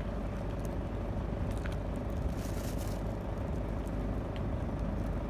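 Steady low road and engine rumble heard inside the cabin of a moving car, with a few faint ticks.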